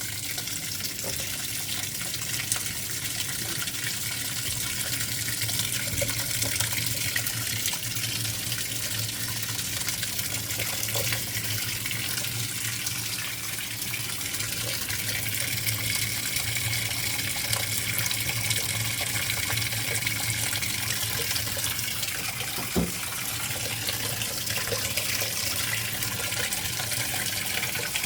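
Speed Queen top-loading washing machine filling its tub with cold water, a steady rush of pouring water over a low hum, with one short knock about 23 seconds in. Softener has just gone in, so this is the rinse fill.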